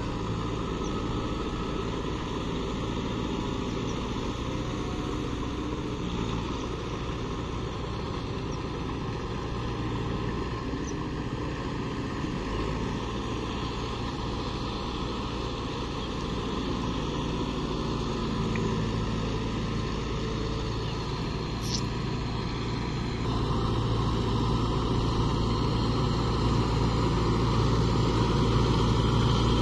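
Kubota MU5502 tractor's four-cylinder diesel engine running steadily as the tractor works through a flooded paddy field, getting louder about two-thirds of the way in as it comes closer.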